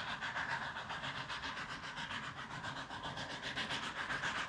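Steam tank locomotive hauling a goods train under power, its exhaust beating in a quick, even rhythm of chuffs.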